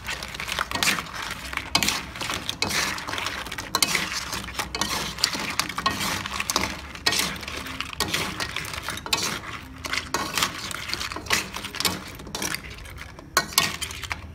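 Metal spoon and knife clinking and scraping against a wok as crab pieces in their shells are tossed and stirred, an irregular clatter of many small knocks throughout.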